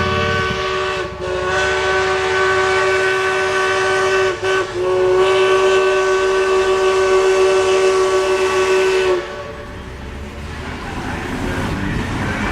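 Steam locomotive chime whistle (East Broad Top No. 15) blowing a chord of several tones in three blasts, two short breaks about one and four seconds in, the last blast held longest and cut off about nine seconds in. A warning sounded at road traffic that did not stop for the train. After it, a low rumble of the train running.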